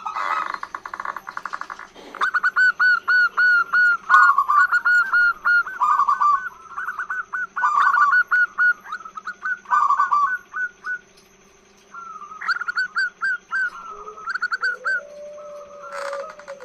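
Female zebra dove calling: runs of rapid staccato cooing notes, repeated in bursts with short pauses and a brief lull about two-thirds of the way through.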